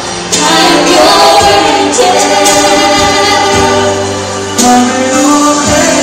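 A man and a woman singing a duet into microphones over musical accompaniment, with sustained sung notes throughout.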